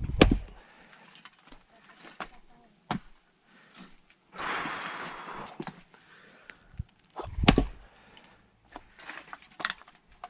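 Two heavy axe strikes splitting firewood, one right at the start and another about seven and a half seconds in. Between them comes a long breath out, and a few lighter knocks follow near the end.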